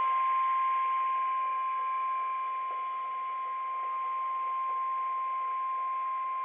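NOAA Weather Radio warning alarm tone sounding during a weekly test: a single steady, high beep held unbroken, over faint radio hiss.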